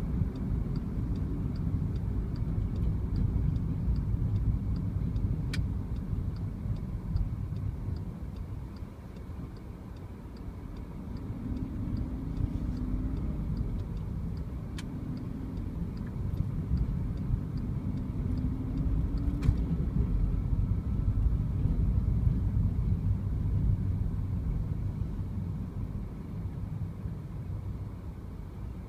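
Car running through city streets, heard from inside the cabin: a low engine and tyre rumble that eases off partway through and builds again. For the first half, an indicator ticks quickly and evenly, and a few single sharp clicks stand out.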